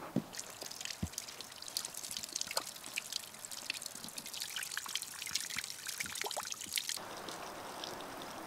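Small icy brook trickling and splashing over rocks, a dense patter of little splashes. There are a couple of knocks in the first second, and about seven seconds in it gives way to a steadier, softer hiss.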